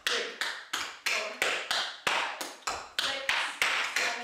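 Metal taps on tap shoes striking a board in a quick, even rhythm of about three or four sharp taps a second, each ringing briefly.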